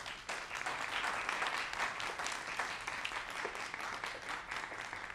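An audience applauding: many people clapping together.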